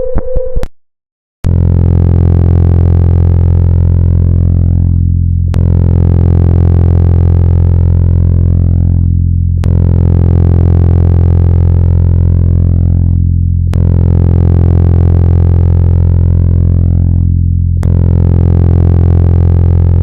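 Star 'sound' from space, a sonification: a loud, steady, deep synthetic-sounding drone with a strong low note and many stacked overtones, its upper tones fading away and starting over about every four seconds like a loop. Before it, a rapidly pulsing tone cuts off within the first second, followed by a brief gap.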